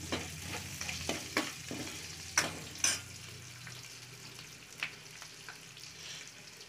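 A steel ladle scraping and clinking against a steel kadai while stirring shallots, garlic, green chillies and mustard seeds frying in oil for a tempering; the stirring stops about three seconds in and the oil keeps sizzling steadily.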